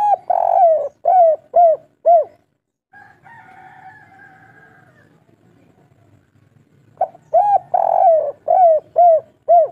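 Spotted dove cooing twice: each phrase is a short note and a longer note followed by three short, clipped coos, the 'kuk 3' song pattern. A softer, drawn-out wavering sound fills the gap between the two phrases.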